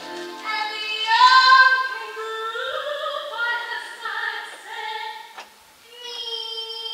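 Young female voices singing a show tune, with notes sliding between pitches, ending in a long held note.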